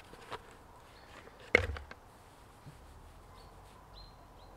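Quiet handling sounds as a forestry safety helmet with mesh visor and ear muffs is taken off, with one sharp knock about a second and a half in. A few faint high bird chirps come near the end.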